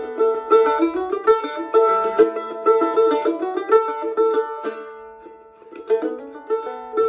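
Instrumental music of quickly picked notes on a plucked string instrument, thinning to a single fading note about five seconds in before the picking resumes.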